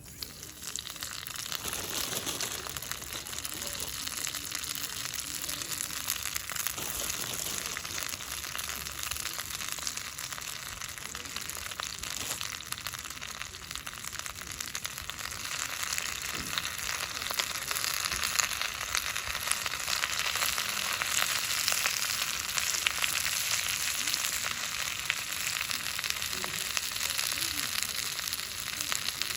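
Pork sizzling as it fries in a small cast-iron skillet, a dense crackling hiss that grows a little louder about halfway through.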